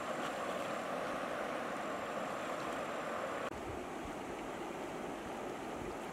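Shallow river rushing over stones, a steady wash of water noise. About three and a half seconds in it cuts suddenly to a slightly quieter, softer stretch of the same kind of flowing water.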